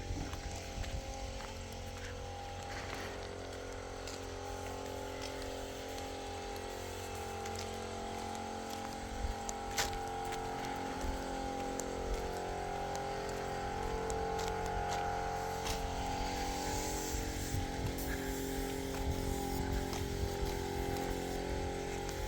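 A vehicle engine running steadily, with a few sharp clicks over it.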